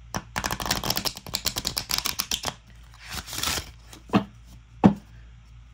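A new oracle card deck being riffle-shuffled: a rapid run of card flicks for about two seconds, then a brief rush as the cards slide together, then two sharp knocks.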